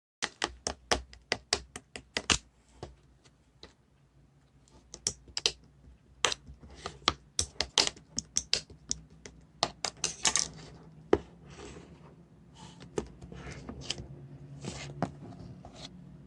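Slime being pressed and worked by hand, giving a run of irregular sharp clicks and pops. In the second half these give way to softer, longer squishing sounds.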